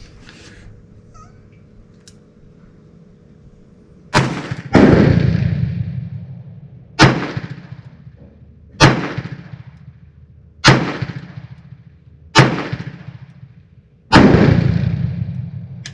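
Enfield No. 2 Mk I** revolver firing .38 S&W handloads, a string of seven loud shots, each ringing out briefly. The first two come about half a second apart, about four seconds in; the rest follow roughly every two seconds.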